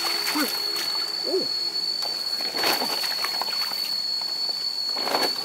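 Hands splashing and sloshing in shallow floodwater while groping for fish, with louder splashes about two and a half and five seconds in. A thin, steady high-pitched tone runs underneath, and a few short gliding calls sound in the first second and a half.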